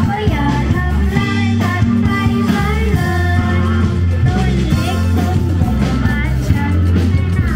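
Music with a singing voice over a heavy bass line.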